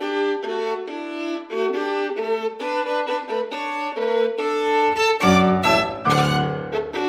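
Background music: a violin melody of held notes stepping from one pitch to the next, with deeper, busier notes joining about five seconds in.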